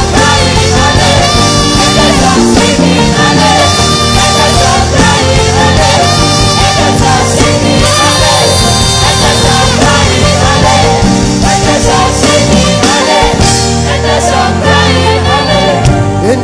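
Loud live gospel dance music with singing, played for dancing during a worship service.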